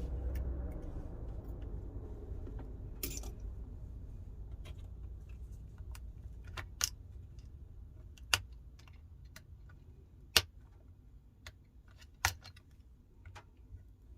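Scattered sharp clicks and taps of small metal tools and tiny screws while a phone is taken apart, with a few louder clicks in the second half.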